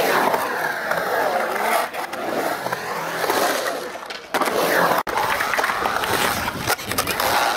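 Skateboard wheels rolling on the concrete of a skate bowl, a continuous rolling noise that swells and sweeps as the board carves up and down the walls. It dips about four seconds in and cuts out for an instant about five seconds in, then carries on.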